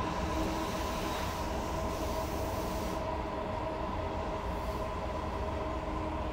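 Inside a Sapporo Municipal Subway Tōhō Line 9000-series car, a rubber-tyred metro train, near the end of its run into the terminus: a steady low rumble under an even hum of several tones. The high hiss drops away about three seconds in.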